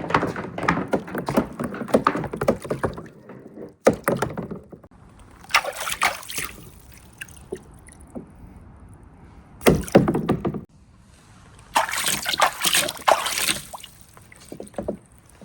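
Marbles rolling and clattering down a wooden marble run with right-angle turns: a dense rattle of clicks for the first few seconds, then separate bursts of clatter about a third of the way in, around two-thirds, and again a few seconds before the end, with softer rolling between.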